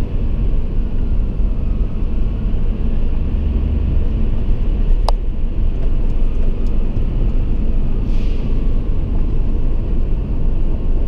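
Steady low rumble of road and traffic noise heard from inside a car moving slowly through a road tunnel, with a single sharp click about five seconds in.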